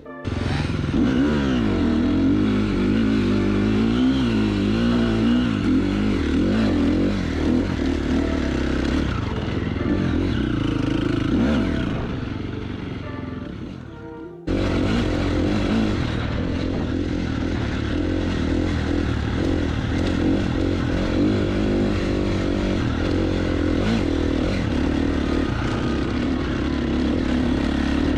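KTM enduro dirt bike engine running and revving as it is ridden, heard from on the bike, its pitch rising and falling with the throttle. About halfway through the sound sinks away, then comes back suddenly and keeps running.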